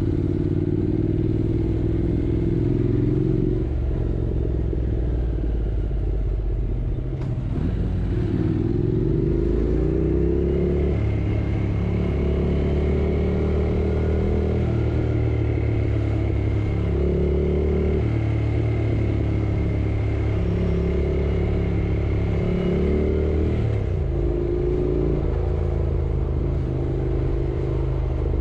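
Yamaha R6 motorcycle's inline-four engine under way, the revs climbing and dropping again several times as the bike runs through the gears. A steady higher whine runs through the middle stretch.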